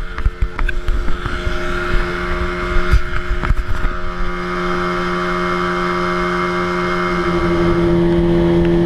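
Motorboat engine running steadily, growing louder over the second half.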